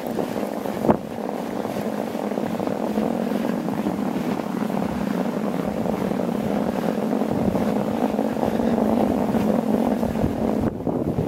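Bicycle tyres rolling over fresh snow, a steady rumbling hum, with wind on the microphone. A single knock about a second in.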